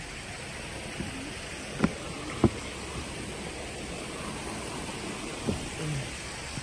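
Shallow creek water running over rocks, a steady wash, broken by a few sharp thumps, the loudest about two and a half seconds in.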